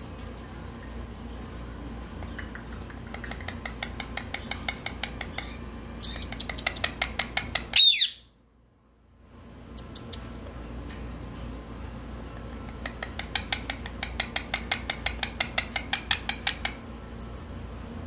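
Indian ringneck parakeet chattering in fast, even runs of clicks, about seven a second, the first run ending in one loud, sharp squawk about eight seconds in; a second run of chatter comes later.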